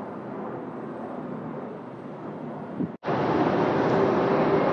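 Jet engine roar from a twin-engine airliner climbing away after takeoff. About three seconds in, an abrupt cut to a louder, steady roar with a faint hum as a rear-engined jet airliner comes in to land.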